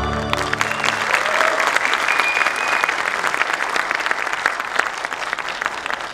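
An audience applauding as the dance music stops; the clapping gradually fades.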